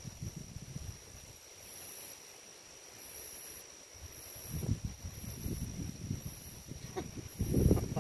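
Insects chirping in even high pulses about once a second over a steady high whine. From about halfway, low rumbling buffets on the microphone grow and peak near the end.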